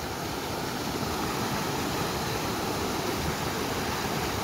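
Mountain headwater stream rushing over rocks and small cascades: a steady, unbroken rush of water.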